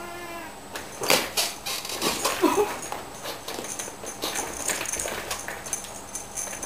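Two cats fighting on a padded office chair. A low growl fades out in the first half-second, then comes a flurry of scuffling, thumps and claws scratching on the chair, with a short cry about two and a half seconds in.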